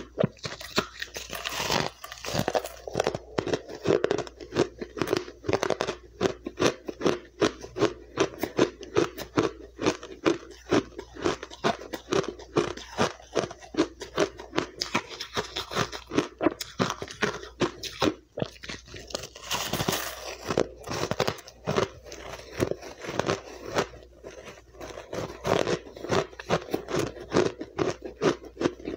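Refrozen powdery ice being bitten and chewed close to a clip-on microphone: dense, rapid crunching, several crunches a second.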